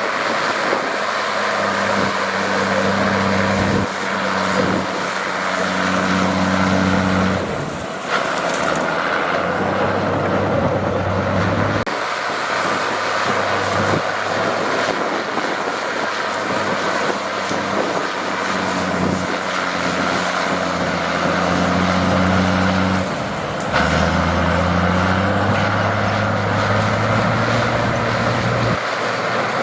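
Heavy diesel construction machinery running under load, its engine note rising and falling as it works. The sound changes abruptly several times, about every four seconds.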